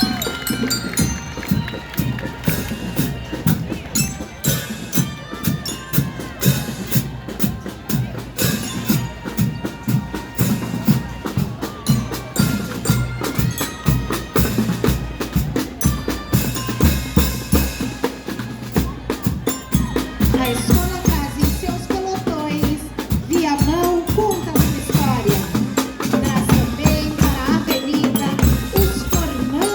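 Marching band playing on the move: bass drum and snare keep a steady beat under a melody of held notes.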